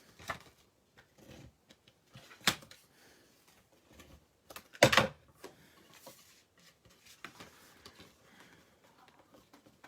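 Cardstock and craft tools handled on a work table: faint rustling with a few sharp taps, a clear one about two and a half seconds in and a louder cluster of knocks about five seconds in.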